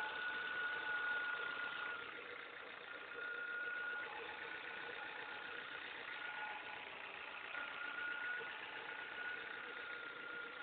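Ford Fiesta Mk5 engine idling with a high, thin whine that fades out and comes back every few seconds, from the pulley end of the engine (power steering pump or crankshaft pulley), a noise the owner has not yet traced.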